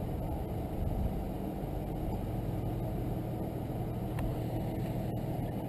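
A vehicle engine idling: a steady low rumble with a low hum that settles in about halfway through.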